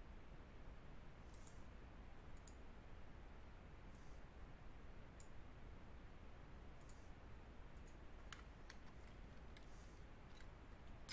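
Faint, scattered computer mouse clicks over a low steady hiss.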